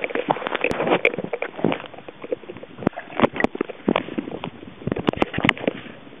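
Irregular clicks, knocks and rushing water noise picked up by an underwater camera in its housing as the rig is jostled about.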